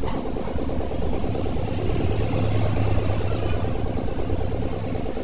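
An engine idling steadily, running a little louder between two and three seconds in.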